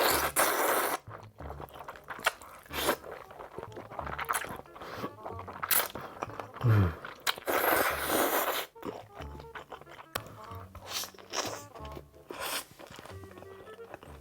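Close-miked crunchy biting and chewing of food, many sharp crackly bites, over background music with a steady bass line. A short falling low tone sounds about halfway through.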